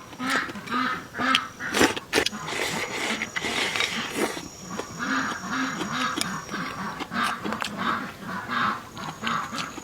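A duck quacking in a steady series, about two to three quacks a second, with a few sharp clicks about two seconds in.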